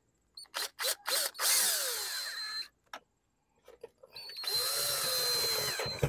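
Cordless drill with a screwdriver bit driving the door panel's retaining screws into a car door. A few short trigger blips come first, then two longer runs of a second or more each, the second near the end.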